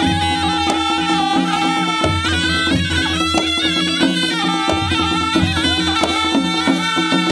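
Nepali panche baja band playing live: two sahanai, nasal double-reed shawms, carry a wavering folk melody over a steady held note, while a dholaki barrel drum keeps up a repeating beat.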